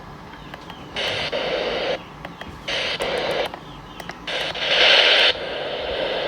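Weather radio sound coming through its speaker as three harsh, hiss-like bursts of about a second each with short gaps between. The third burst is the loudest and gives way to a steadier hiss.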